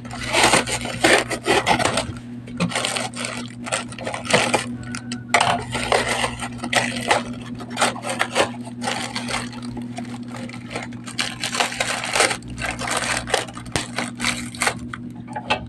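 A parcel's packaging being handled and opened by hand: irregular crinkling, scraping and rubbing with sharp clatters throughout.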